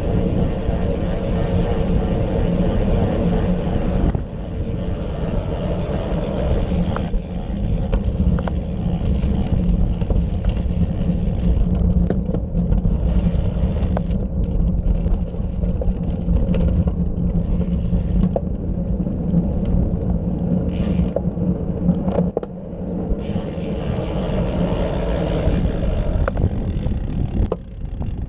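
Wind and road rumble on a handlebar-mounted camera's microphone as a road bike is ridden at speed. The rumble dips briefly three times.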